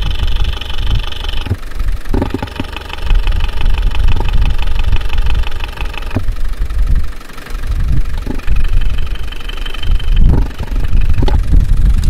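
Land Rover Tdi diesel engine running, picked up through a mechanic's stethoscope rod on the rocker cover, with a loud, rhythmic tapping from the valve gear at the first cylinder's number one and two valves, where loose tappets are suspected. The tapping changes several times as the rod is moved from one valve to the other, over a rumble of wind on the microphone.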